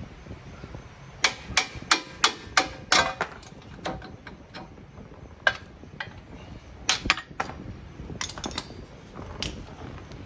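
Hammer blows on steel with a short metallic ring. A quick run of six strikes comes about three a second a little over a second in, then scattered single strikes and a small cluster later, knocking a front suspension part loose.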